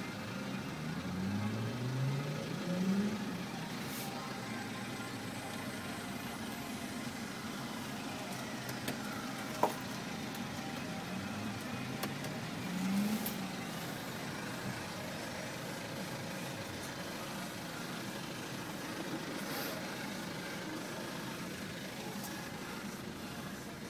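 BMW 520d's four-cylinder turbodiesel running steadily, heard from inside the cabin. Twice a tone sweeps upward in pitch over a second or two, and there is one sharp click about ten seconds in.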